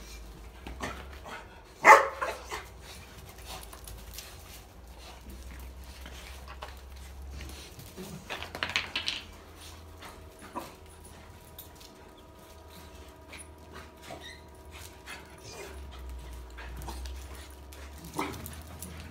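Puppies and a dog at play, barking. There is a loud, sharp bark about two seconds in, a run of barks around the middle, and another bark near the end.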